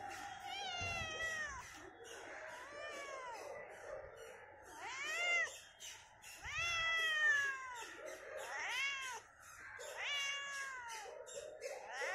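Domestic cat meowing repeatedly: about six drawn-out meows, each rising then falling in pitch.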